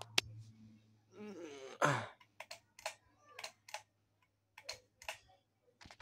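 Concord Montago ceiling fan running with a low steady hum. A short falling groan comes near two seconds in, then a string of irregular sharp clicks.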